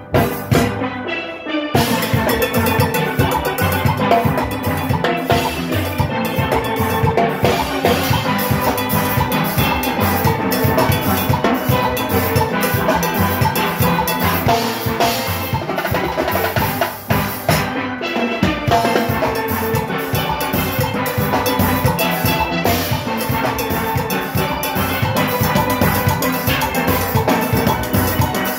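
A steel orchestra playing live: steelpans over an engine-room groove of drum kit and metal percussion. A few opening hits come first, and the full band is in about two seconds in.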